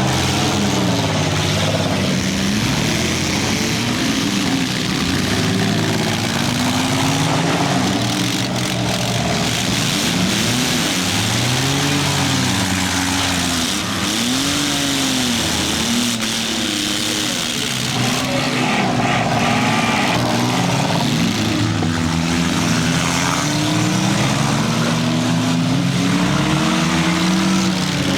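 Several small-car engines revving up and down over one another, their pitches rising and falling out of step, over a constant noisy wash.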